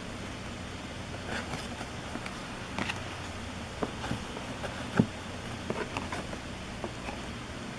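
Trading cards being handled: irregular light clicks and snaps of card stock, with one sharper tap about halfway through, over a steady low hum.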